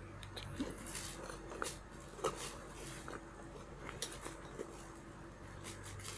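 Handling of a nylon sling bag: fabric rustling with scattered light clicks and taps as its compartments are opened and felt through, over a faint steady hum.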